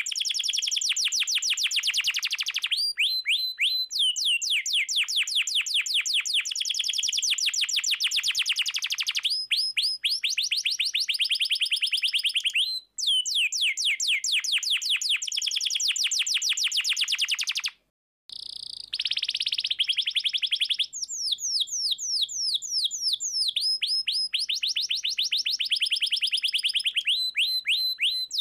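Domestic canary singing vigorously in a long rolling song: fast trills of repeated, quickly falling notes that switch from one phrase to the next. The song breaks off for a moment about halfway through, then resumes.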